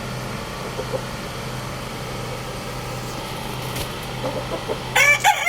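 A rooster starts crowing near the end, loud and strongly pitched, after a few soft clucks from the chickens. A steady low hum runs underneath.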